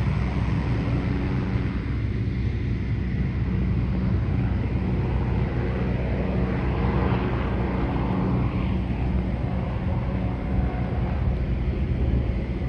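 MD500E helicopter's turbine and rotor running with a steady drone as it flies away after takeoff.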